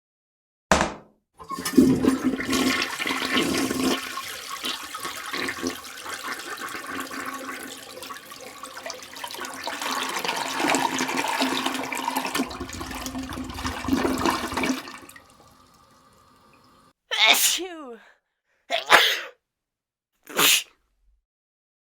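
A toilet flushing: a click of the handle, then about thirteen seconds of loud rushing water with a steady low hum as the bowl and tank empty and refill. Near the end come three short bursts of a person's voice, likely sneezes.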